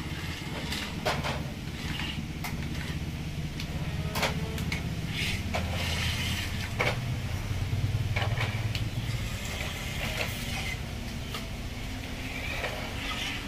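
Electric motors and gearboxes of a Huina 331 radio-controlled excavator whirring as it crawls on its tracks and works its arm, with scattered clicks and knocks of plastic parts. The whirr grows louder in the middle.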